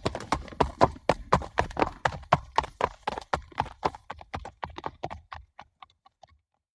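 Horses galloping, a rapid run of hoofbeats that grows fainter and sparser after about five seconds and dies away near the end.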